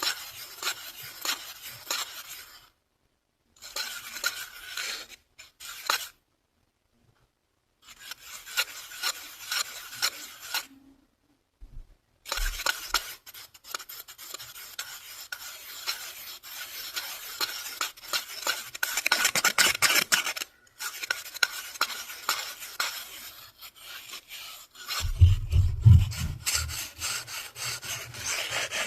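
Fast, aggressive scratching and rubbing close to the microphone, in short runs with brief pauses at first and then without a break. A deeper, heavier rub comes in near the end.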